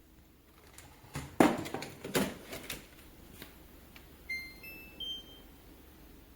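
Plastic clicks and knocks as a Shark cordless stick vacuum is handled. These are followed by a short electronic chime of three beeps rising in pitch.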